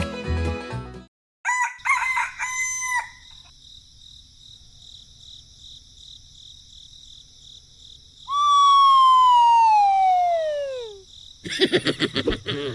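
A rooster crows once, a long call that falls steadily in pitch, about eight seconds in. Before it, music breaks off and a few short electronic beeps sound over a faint steady high hum; music starts again near the end.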